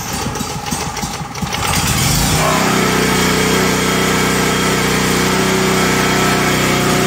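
Champion 4550-watt dual fuel portable generator's single-cylinder gasoline engine cranked by its electric starter with the choke on. It catches about two seconds in and then runs steadily.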